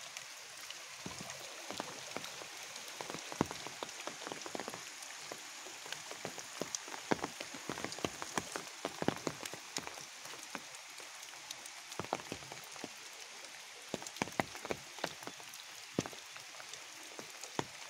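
Rain falling: a steady hiss with many irregular sharp taps of drops landing close by.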